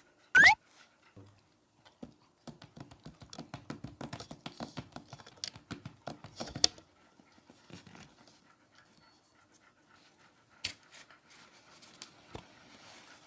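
A dog panting in quick, irregular puffs through the middle few seconds, with a short, loud, rising squeak about half a second in.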